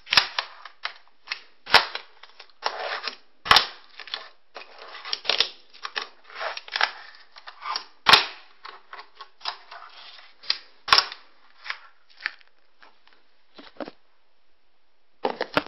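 Fingerboard tricks on a wooden ledge: an irregular series of sharp clacks as the tiny board's tail pops and lands, with the wheels rolling and scraping between them.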